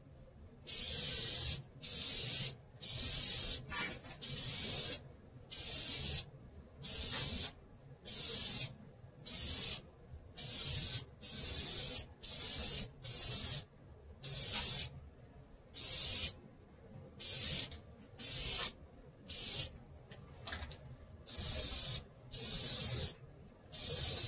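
Aerosol can of vinyl and fabric paint spraying in short hissing bursts, about one a second, laying down light coats of black paint.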